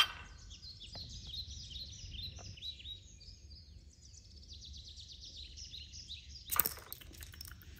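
Small birds chirping steadily in the background, many short high calls. About six and a half seconds in there is a brief cluster of sharp clicks.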